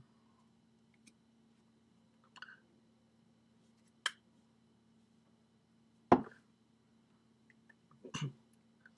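A few scattered sharp clicks and knocks, about two seconds apart, with the one about six seconds in the loudest, over a faint steady hum.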